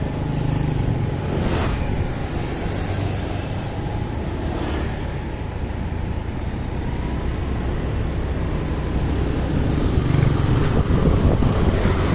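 Motorbike engine running at riding speed with road noise and wind buffeting the microphone, among surrounding scooter traffic; the wind noise grows louder near the end.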